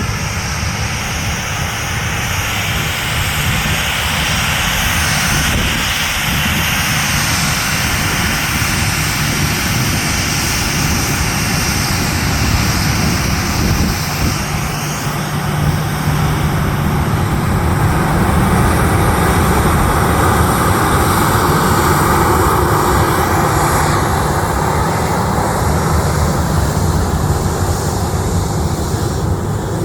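Boeing 737 jet engines running loud and steady, with a faint high whine above the noise.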